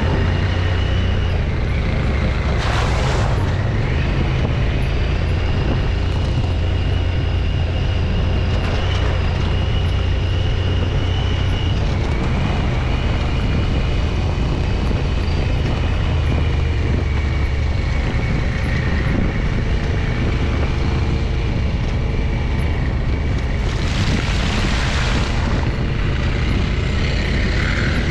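Side-by-side UTV engine running steadily under way, heard from aboard the machine: a constant low drone with a faint steady high whine. Two brief bursts of rushing noise come about 3 seconds in and again near 24 seconds.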